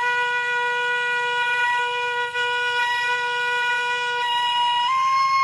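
A short end-blown wooden pipe plays one long held note, rich in overtones, stepping up slightly near the end.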